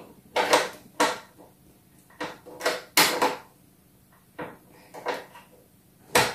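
Small screwdriver working the screw of a plastic toy dollhouse's battery cover: a string of short, irregular clicks and scrapes of metal on plastic, the loudest a sharp click near the end.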